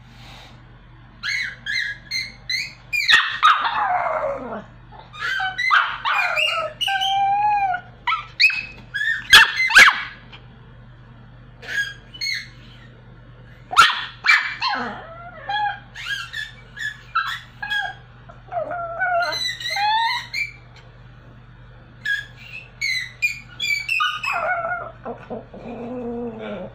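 Pomeranian dog vocalizing in a string of high yips and whines with longer howl-like calls that slide down in pitch, broken by short pauses: the dog's attempt at singing.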